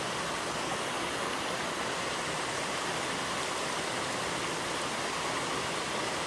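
Waterfall in a mountain valley stream: falling water making a steady, unbroken rush.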